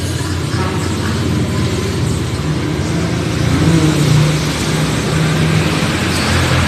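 A motor vehicle's engine running close by: a steady low hum that grows louder about halfway through, then eases.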